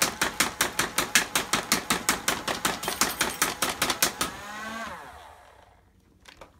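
Nerf HyperFire motorized flywheel dart blaster firing full-auto, about five or six darts a second, until its 25-dart drum is empty about four seconds in. Its motors then whine down, and a few light knocks follow near the end.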